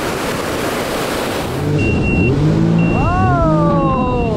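Wind and surf noise, then about a second and a half in a jet ski's engine comes in, revving up and down again and again, with a high beep sounding on and off.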